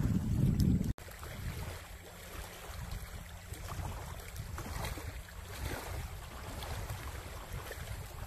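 Wind buffeting the microphone with a loud low rumble, cut off abruptly about a second in. A quieter steady low wind rumble follows, with faint small sounds scattered over it.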